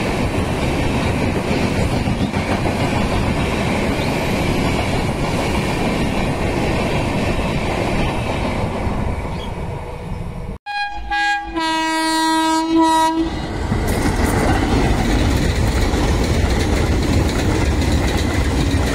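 Indian Railways express coaches rushing past at high speed, a steady roar of wheels on rail. About ten seconds in the sound cuts off, a locomotive horn sounds for about two seconds, and then another passenger train's coaches pass at speed with the same rolling roar.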